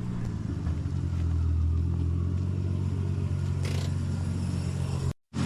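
Nissan R34 Skyline's engine running at a steady low drone, with a brief gap to silence near the end.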